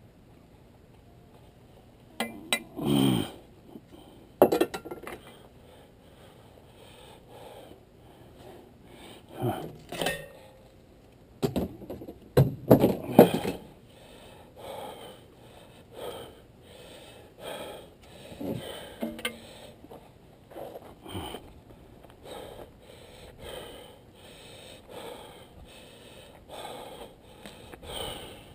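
Hard objects being handled: scattered clinks, scrapes and knocks. The loudest come as a cluster about twelve to thirteen seconds in.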